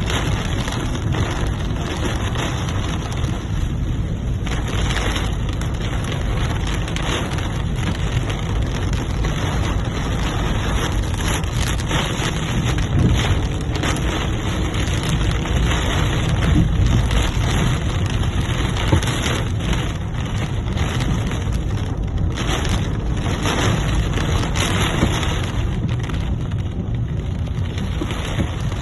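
Heavy rain falling steadily, with wind rumbling low on the microphone.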